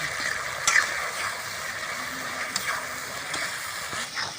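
Onion, tomato and ground-spice masala sizzling steadily in hot oil in a pan as it is fried down, with a few short sharp ticks from stirring.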